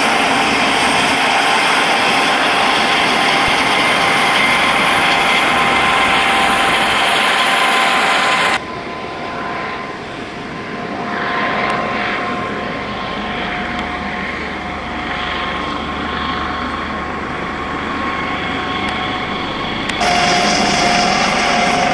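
Rescue helicopter running, a steady rotor and turbine noise with a held whine through it. The sound drops suddenly and becomes quieter about eight seconds in, then jumps back to full loudness near the end.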